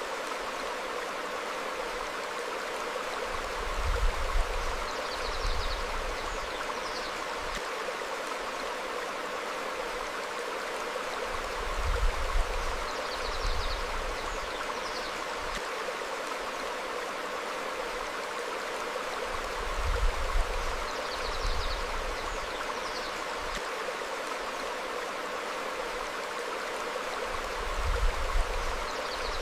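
Stream flowing steadily over rocks, with small birds giving short high chirps every few seconds. Brief low rumbles come about every eight seconds and are the loudest thing heard.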